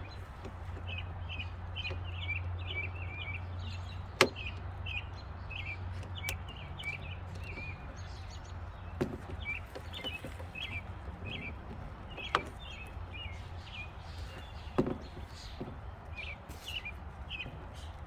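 A small bird chirping over and over in quick short notes, with four or five sharp clicks or knocks spread through, from hand tools and parts being handled.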